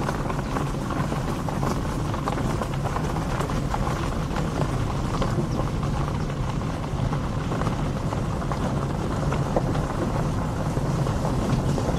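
Land Rover Defender driving on a gravel forest track: a steady engine drone, with tyres crunching over gravel and small knocks and clicks.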